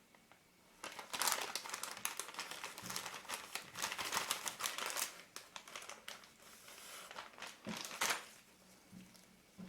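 Lens tissue crinkling and rustling in irregular bursts as a glass lens element is wiped clean of haze, from about a second in until about eight seconds.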